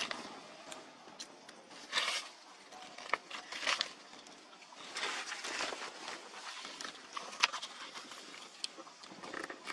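Irregular rustling and crackling of dry leaf litter, broken by a few sharp clicks, one of them about seven seconds in standing out as the loudest.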